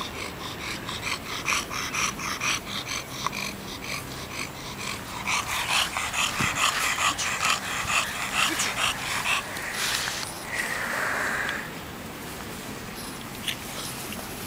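English bulldog panting rapidly and rhythmically, about three breaths a second, louder around the middle. About ten seconds in, a steady hiss lasts for about a second and a half.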